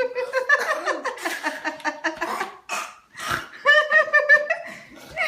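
High-pitched laughing and squealing, likely a child's voice, with a burst of quick, pulsed laughter about two-thirds of the way through.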